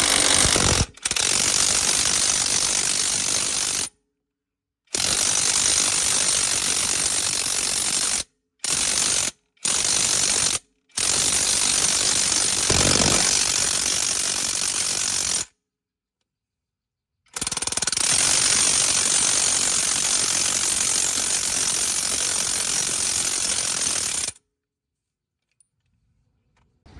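Air impact wrench rattling in several long bursts on a heavy truck's wheel nuts, each burst starting and stopping abruptly.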